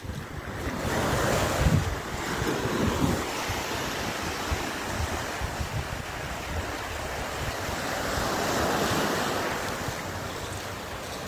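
Small surf washing up a sandy beach, swelling and easing in gentle surges, with wind buffeting the microphone.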